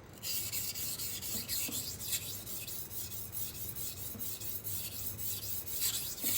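A steel kitchen knife edge is scraped back and forth across a 1000-grit Gritomatic whetstone in repeated sharpening strokes, making a continuous rasping hiss that swells and fades with each stroke. This is the bevel-setting stage on the coarse stone.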